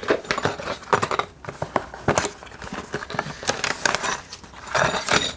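Hands handling unboxing packaging: a small black cardboard box and paper inserts being picked up and shuffled. Light irregular taps and clicks, with a louder rustle near the end.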